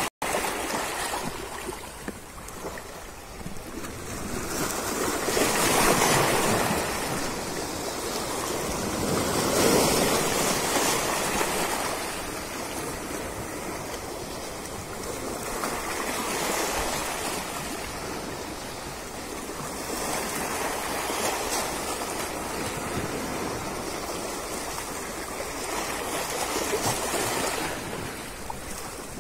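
Small sea waves washing over a shallow rocky shore, swelling and fading every four to six seconds.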